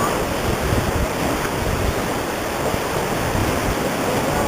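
Rushing river whitewater around a raft running rapids: a steady noise of churning, splashing water.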